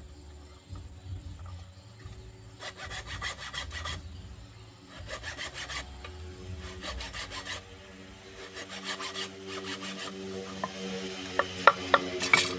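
Hand hacksaw cutting through a pipe fitted on a wooden stick: rasping bursts of saw strokes with pauses between them. A few sharp clicks and knocks near the end are the loudest sounds.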